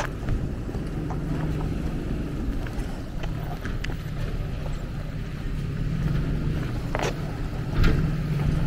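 Lexus LX470's V8 engine running at crawling speed as the SUV drives over slickrock, a low steady hum under tyre noise, with a few short crackles near the end.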